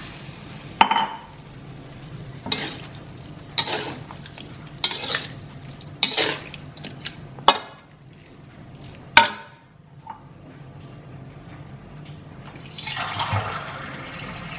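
Slotted metal spatula stirring shredded chicken in a metal wok: about seven sharp scraping strokes of metal on metal, roughly one every second or so, then a pause. Near the end, a steady hiss of water being poured into the hot wok.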